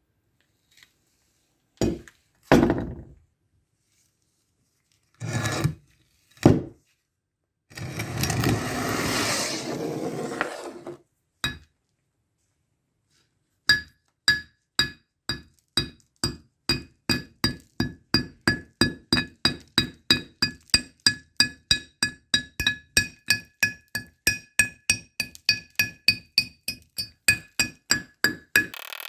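A hammer pounding the rusty steel hatchet head to knock off the thick rust: a long run of steady blows, about three a second, each with a bright metallic ring, starting about halfway through. Before that come a few separate knocks and a few seconds of rough scraping.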